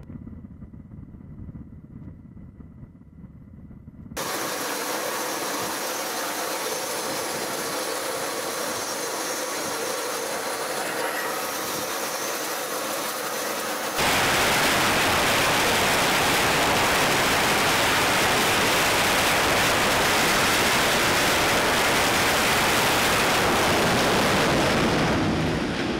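Steady jet engine noise on a carrier flight deck: from about four seconds in, F/A-18 engines run with a high turbine whine. At about fourteen seconds this cuts to a much louder, even noise from an F/A-18 at full power with afterburner on the catapult, ready to launch. A low rumble comes before the jet noise.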